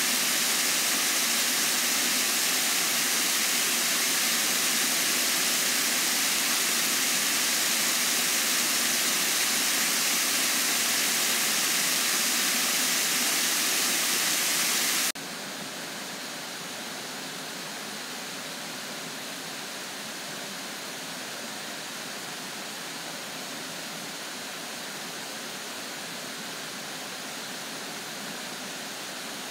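Water swollen by rain pouring over a concrete spillway's stepped drop into a churning pool: a loud, steady rush. About halfway through it cuts abruptly to a quieter, steady rush of water flowing down a narrow concrete channel.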